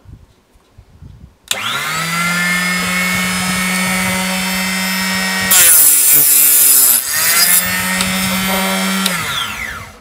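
Mini chop saw's electric motor switching on about a second and a half in, winding up to a steady high whine. About halfway through, the blade bites into brass rod: a loud hissing cut lasting about a second and a half, dragging the motor's pitch down under the load. The motor then runs free again and spins down with a falling whine near the end.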